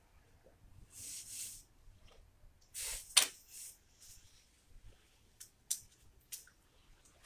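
Paper rustling in two short bursts as it is handled, then a sharp tap about three seconds in, followed by a few light clicks of small objects being picked up and moved.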